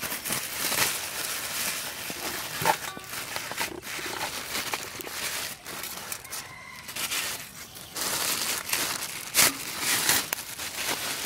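Plastic bags crinkling and rustling as they are handled and emptied, in irregular bursts with a short pause about halfway through.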